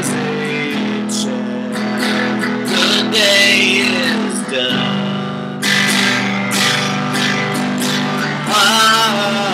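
Instrumental passage of a song: guitar chords strummed every second or two and left ringing, with a wavering melodic line above that climbs near the end.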